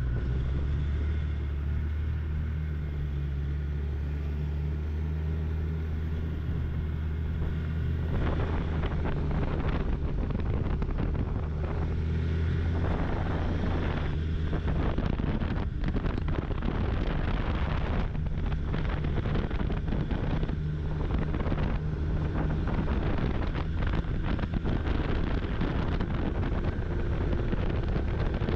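Snowmobile engine running at a steady pace while riding, with wind buffeting the microphone. About eight seconds in, the wind noise turns rougher and louder over the engine.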